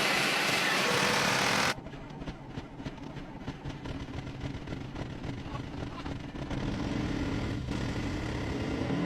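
Diesel engine of a 1988 Scania dump truck running, heard in edited clips. A loud hissing stretch cuts off abruptly a little under two seconds in. It gives way to a quieter, even, rumbling run that grows somewhat louder past the middle.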